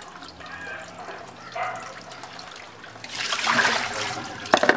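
Hands swishing and splashing small dried fish (ndakala) in a plastic basin of water while washing them. There is a louder splash about three seconds in, then a couple of sharp knocks near the end.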